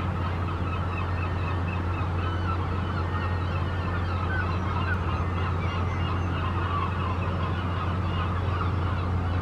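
A flock of birds calling continuously, many overlapping honking calls, over a steady low machinery hum.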